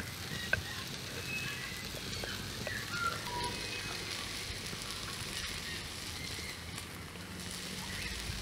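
Open wood fire crackling under an iron pan, with a steady hiss of chicken and rice frying in it; one sharp crack about half a second in.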